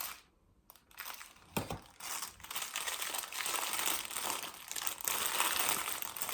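Packaging crinkling and rustling in irregular bursts as an anti-snoring head strap is unwrapped and handled, after a brief hush near the start.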